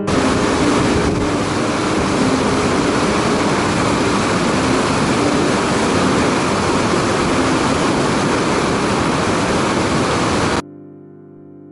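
Whitewater mountain stream rushing over boulders: a loud, steady rush of water, with soft piano music faintly beneath. The water sound cuts off suddenly about a second before the end, leaving only the piano.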